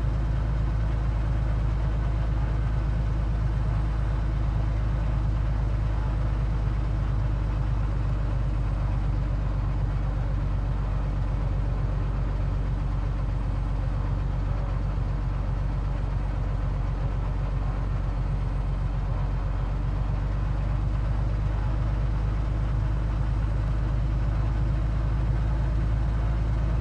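Cessna 182Q's six-cylinder Continental O-470 engine and propeller droning steadily in flight, heard from inside the cabin.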